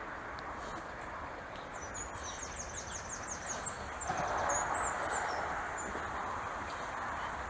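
A small bird singing a quick run of high chirps, then a few more scattered notes, over a steady rushing background that swells about four seconds in.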